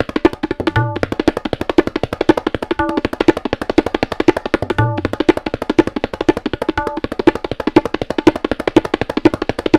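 Tabla played solo with both hands: a fast, even run of ringing strokes on the treble drum (dayan) at a steady pitch, with a deep bass stroke on the bayan about a second in and again about five seconds in.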